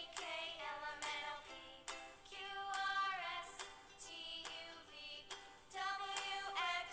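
Background children's music: a high singing voice carrying a melody over an accompaniment with a steady beat.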